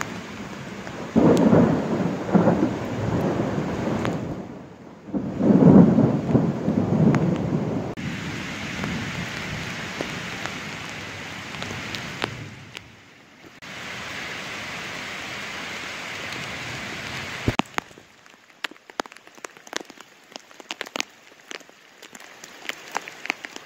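Thunderstorm: two long rolls of thunder in the first eight seconds, then a steady hiss of heavy rain falling on the river. Near the end the hiss gives way to single raindrops ticking close by.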